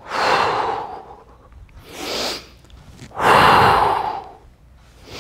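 A man's loud, rushing breaths close to the microphone: three breaths, the last the loudest, taken in time with a flowing warm-up movement.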